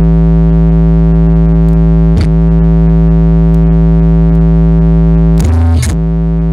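Car-audio bass box with a JBL 10-inch subwoofer playing a loud, steady, deep bass tone rich in overtones. The tone dips briefly about two seconds in and breaks off for a moment near the end.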